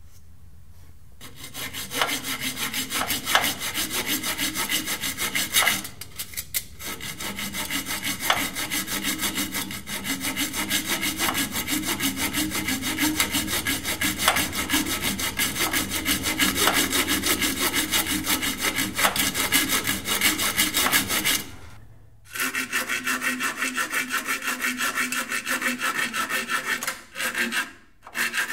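Small hacksaw cutting through the tractor's old hydraulic hard line with fast, even back-and-forth strokes, pausing briefly three times.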